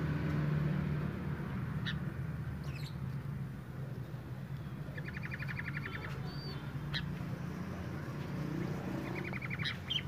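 Sooty-headed bulbuls calling. A few short chirps lead into a fast rattling chatter about five seconds in, roughly a dozen notes in under a second, with a shorter rattle near the end. This is the 'nyrecet' chatter of a male and female in breeding condition.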